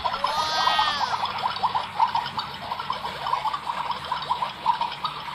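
Battery-powered toy barbecue cart's sound effect: a quick run of electronic bubbling, popping clicks, with a falling, warbling tone about half a second in.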